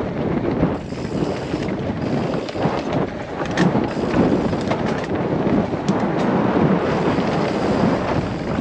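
Wind buffeting the rider's camera microphone over the rumble of mountain bike tyres rolling fast on dirt singletrack, with a few sharp rattles from the bike over bumps in the middle.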